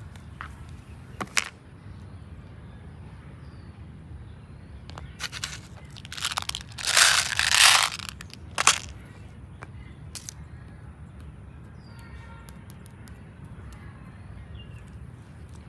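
A clear plastic box full of small beads being picked up and handled, giving scraping and rattling sounds in a cluster around the middle, loudest about seven to eight seconds in. A single sharp click about a second in, over a steady low background rumble.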